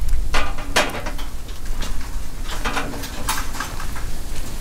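Irregular knocks and clatter, with a steady low rumble underneath.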